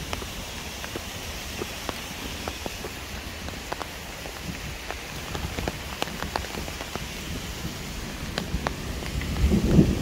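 Steady rain with many close raindrops ticking sharply over an even hiss of water. Near the end a low rumble of thunder begins to swell.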